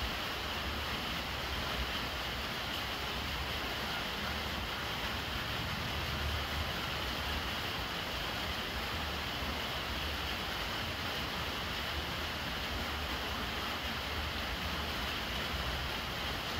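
Steady rain splashing onto water pooled on top of a large round water jar, with a thin stream trickling from a plastic downpipe.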